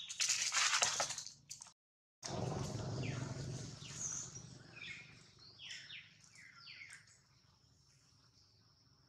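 Dry leaf litter rustling and crunching for about a second and a half, then a brief break in the sound and a few short, falling bird chirps over a faint background.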